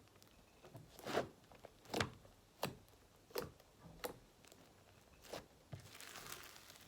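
Slime being squeezed and pressed near a microphone, giving a string of sharp pops and crackles from bursting air bubbles, with a short soft rustle near the end.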